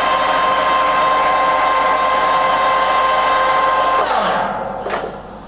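Pinacho L-1/260 lathe headstock running steadily at its top spindle speed of 1250 rpm with a steady whine, then switched off about four seconds in and running down quickly, with a sharp click shortly after.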